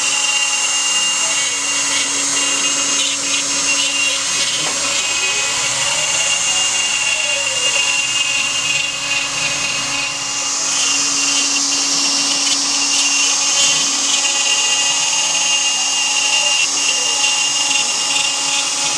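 Joe's 4x4 hobby CNC router carving: the spindle runs with a steady high whine, while the axis stepper motors sweep up and down in pitch every few seconds as the gantry speeds up, slows and changes direction.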